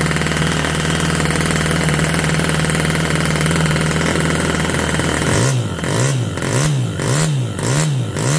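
Musa FV1A 7cc single-cylinder four-stroke model engine running, raspy. It holds a steady speed at first, then about five seconds in its revs start rising and falling in regular swings, a little under two a second.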